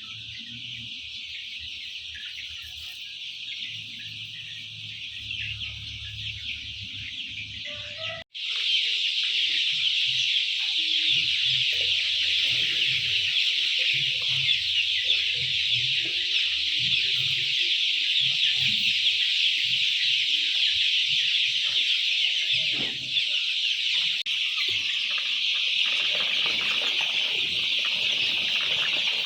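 A steady din from a flock of chickens clucking, with scattered lower sounds mixed in. It is fainter at first and becomes clearly louder after an abrupt cut about 8 seconds in.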